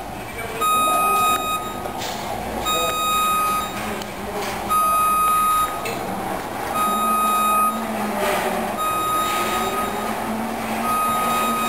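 Powered lift's motion alarm beeping: one steady high tone about a second long, repeating about every two seconds.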